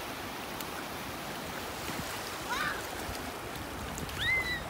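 Shallow surf washing in over sand, a steady rushing hiss. A child's voice gives two short high rising calls, about halfway through and near the end.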